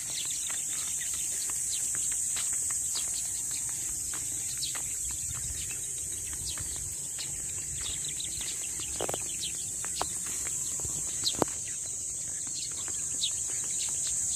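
Steady high-pitched chorus of insects droning without a break, with scattered light taps of footsteps on the concrete road.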